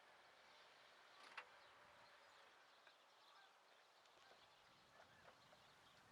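Near silence: faint background hiss with a few tiny ticks and one slightly louder click about a second and a half in.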